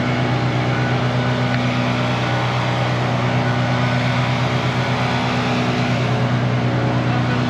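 A diesel engine of heavy equipment running steadily at a constant speed, with an even drone.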